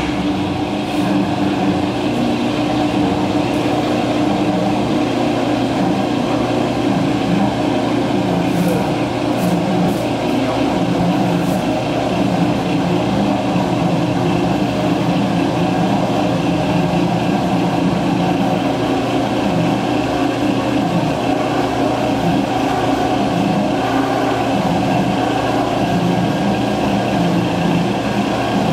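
A 1993 Ransome 200P 20,000 lb welding positioner's power tilt drive running under load, its motor and gearing humming steadily as the table tilts. A low pulsing repeats every second or two.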